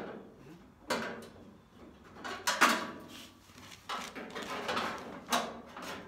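Steel roll pan clunking and scraping against the pickup's rear sheet metal as it is shifted and pushed into position, in several short bursts about a second apart.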